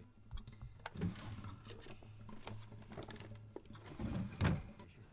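A person walking across a room and rummaging through papers on a desk: a run of light clicks and rustles with a few heavier thumps, over a steady low hum.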